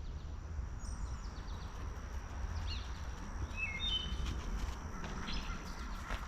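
Woodland ambience: scattered short bird chirps, a few seconds apart, over a thin steady high-pitched tone and a low rumble.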